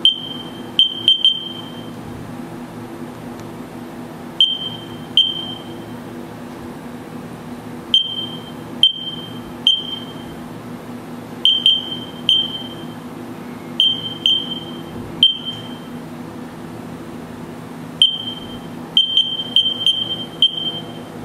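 Haas CNC control keypad beeping as keys are pressed: about twenty short high beeps, each with a click, in irregular runs of one to three, over a steady low machine hum.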